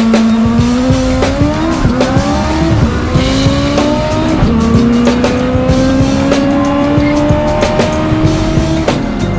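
Toyota MR2 drag car's 3S-GTE four-cylinder accelerating hard through the gears: the pitch climbs and drops at four quick upshifts in the first four and a half seconds, then climbs in one long pull that stops near the end. Music plays underneath.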